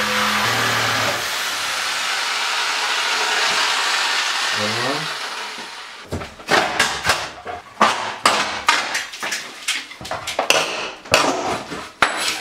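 A corded power tool cuts through nails in an old wooden attic-stair frame, running for about five seconds before winding down. Then a crowbar pries the frame out of the ceiling opening, with a quick run of sharp cracks, knocks and creaks as the wood and nails give way.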